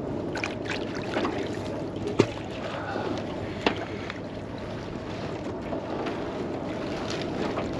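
Steady noise of a small fishing boat at sea, wind and water against the hull, with a couple of sharp knocks about two and three and a half seconds in.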